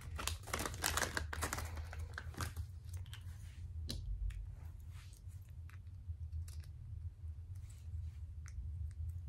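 Small plastic clicks and taps of Lego minifigure parts and their packaging being handled. They come thick and fast for the first couple of seconds, then sparser, with one sharper tap about four seconds in, over a steady low hum.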